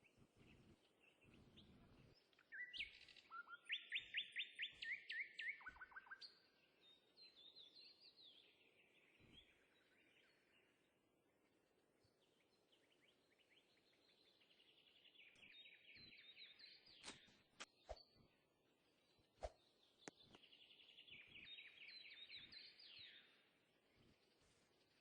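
Small birds singing: fast trilled phrases, loudest about three seconds in, with further trills around fifteen and twenty seconds, and a few faint clicks between them.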